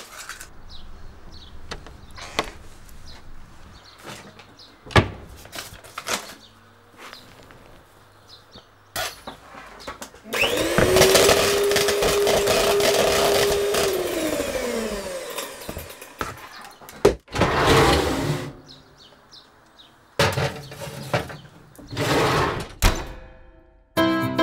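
Kitchen sounds of cake baking: scattered knocks and short noises as eggs are cracked into a plastic bowl, then an electric hand mixer running steadily in the bowl for about four seconds from about ten seconds in, its whirr falling in pitch as it winds down. More short noisy sounds follow, and light piano music begins at the very end.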